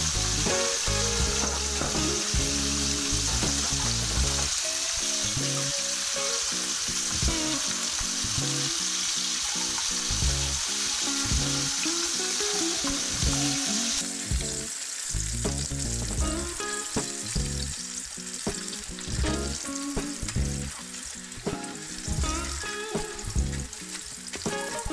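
Starch-battered meat deep-frying in hot oil: a dense, steady sizzle that drops suddenly about halfway through to a lighter crackle, under soft background music.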